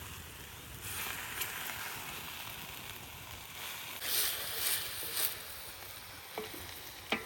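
Open cooking fire hissing and crackling, with a few louder crackles about four to five seconds in and a sharp click near the end.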